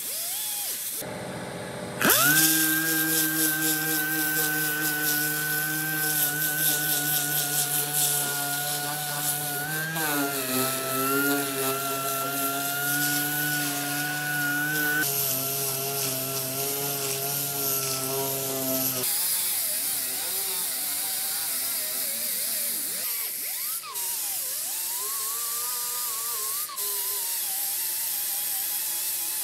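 Handheld grinder with abrasive sanding discs grinding down weld beads on a steel patch panel. It gives a steady high whine that sags in pitch and recovers as the disc is pressed into the metal. The sound changes abruptly several times.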